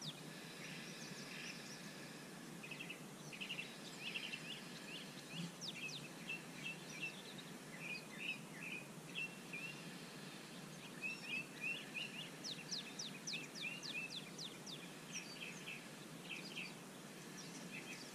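Wild birds chirping and trilling almost without pause, with a quick run of high sweeping notes partway through, over a steady low background hiss.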